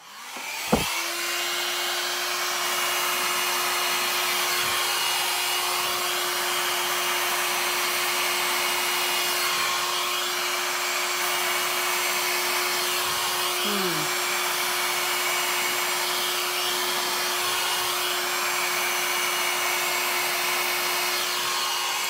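Handheld hair dryer switched on with a click just under a second in, then running steadily: a loud rush of air over a constant motor hum as it blows wet acrylic paint outward into a bloom.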